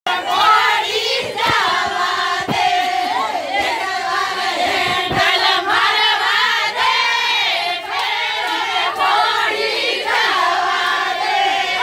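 A group of women singing together in chorus, many voices overlapping, with a few sharp taps in the first half.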